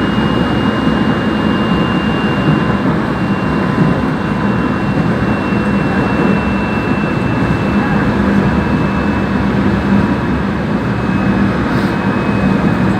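Korail Line 4 electric multiple unit running at speed between stations: a steady rumble of wheels on the track and traction equipment, with a thin high tone that falls slowly in pitch.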